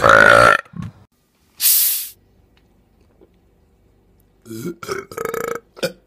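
A person belching loudly on command, one pitched burp lasting about half a second. A short hiss follows about two seconds in, and near the end come a few more short voice sounds.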